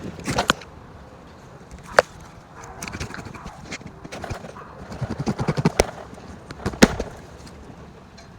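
Tree branches being cut by hand: sharp snips of a pruning tool, with leafy branches rustling and crackling for a few seconds in the middle.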